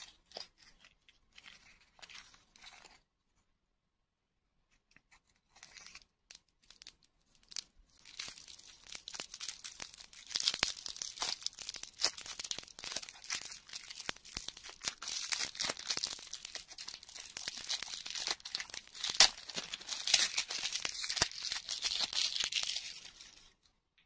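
A plastic wrapper is peeled and torn off a lollipop by hand. After a few light handling noises, a dense run of crinkling and tearing starts about eight seconds in and stops shortly before the end.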